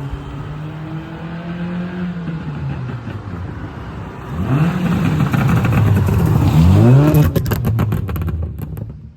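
Stage 2 ECU-remapped Maruti Suzuki Baleno's engine running steadily, then revved up and back down twice, about four and seven seconds in. A quick run of exhaust pops and crackles follows on the overrun, the tune's pops-and-crackles map, fading out near the end.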